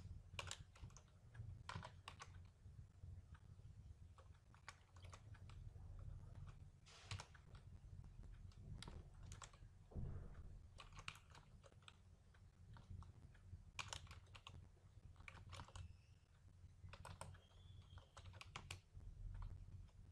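Faint computer keyboard typing: irregular keystrokes in short runs, over a low steady hum.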